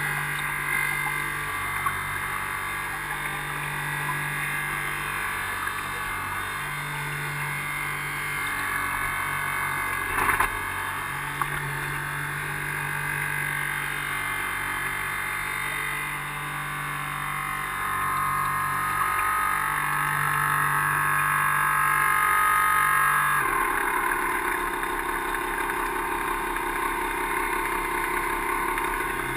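380-size brushed electric motors of an RC harbour boat running steadily with a constant whine, heard from a camera on the bow, with water splashing at the hull. The motor note changes about three-quarters of the way through, and there is one brief knock near the middle.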